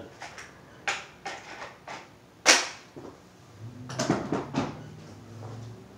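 Hard plastic knocks and clatter of things being put into a Ridgid plastic rolling tool box: a few light clacks in the first two seconds, one sharp loud knock about two and a half seconds in, then a short run of rattling knocks around four seconds.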